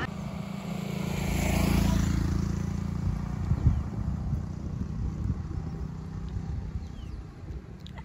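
A motor vehicle on a road: one vehicle swells louder and fades again around two seconds in, over a steady low rumble.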